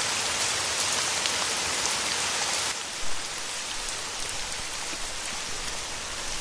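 Steady rain falling, an even hiss. It drops a little in level about two and a half seconds in, with a brief louder sound just after.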